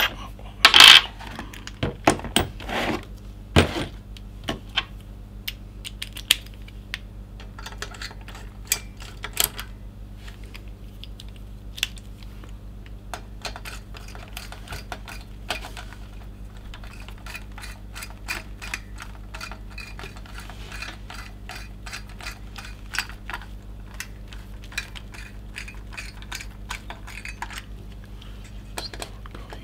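Clatter of a plastic screwdriver bit case being handled, loudest in the first few seconds, then many small irregular clicks as a hand screwdriver turns the mounting screws of a CPU cooler, over a faint steady hum.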